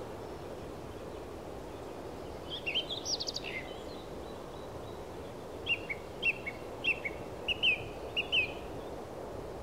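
Small birds chirping over a steady background hiss: a quick cluster of chirps about two and a half seconds in, then a run of repeated short, evenly spaced chirps through the second half.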